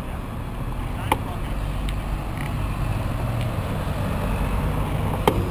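Steady low rumble of wind and road noise on a bicycle ride, with two sharp clicks, about a second in and near the end.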